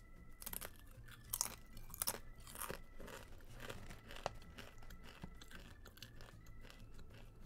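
A person biting and chewing a firm coconut flour tortilla chip: a run of sharp crunches, loudest in the first three seconds, then quieter chewing.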